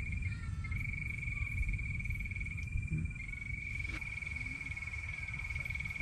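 A frog calling: a steady, rapidly pulsed high-pitched trill that breaks off briefly twice, over a continuous low rumble.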